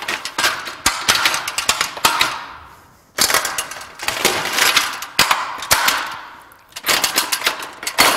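Little Giant aluminium multi-position ladder being swung and folded into its A-frame position: the metal rails and hinge locks clank, rattle and click in three rounds of clatter, each trailing off.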